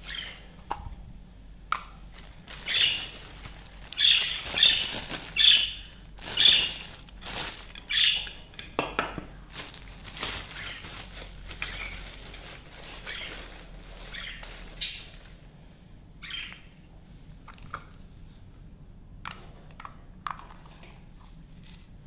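Pet budgerigars chirping, mixed with the crinkle and rustle of a clear plastic bag being handled. The sounds come as short, sharp bursts, thickest in the first half and sparser later.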